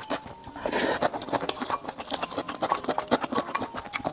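Close-miked eating sounds: a wooden spoon scraping and clicking against a glass bowl, with chewing and small mouth clicks, in many short sharp ticks.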